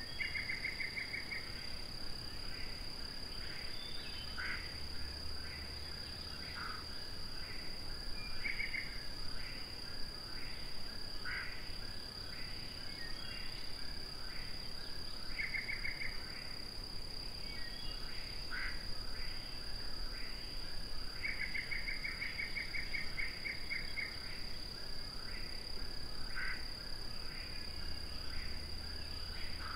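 Eastern whip-poor-will singing its song over and over, one short phrase every two to three seconds. Short buzzy frog trills come in now and then, the longest lasting about three seconds near the end, over a steady high insect drone.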